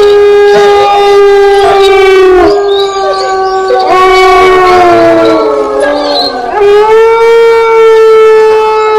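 Horror sound effect of a ghostly wailing cry: loud, long held notes that sag and slide in pitch, breaking off briefly twice before rising again.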